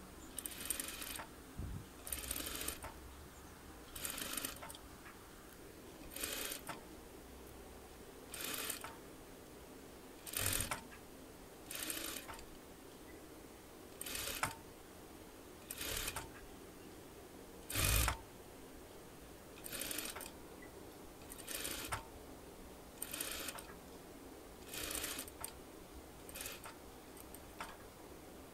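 Electric sewing machine stitching elastic onto a sun hat in short runs, each under a second, about one every two seconds, with pauses as the fabric is guided and the elastic pulled tight between runs.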